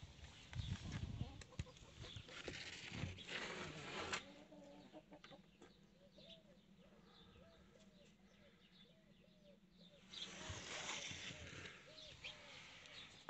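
Hens clucking in a regular series of short calls, about two a second, with rustling and handling noise in the first few seconds and again about ten seconds in.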